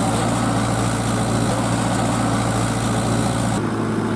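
Tractor diesel engine running steadily at low revs. Its deepest part drops away suddenly near the end.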